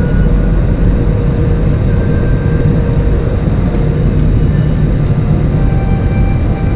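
Airliner cabin noise during the landing approach: a loud, steady low roar of engines and airflow with a faint steady whine over it.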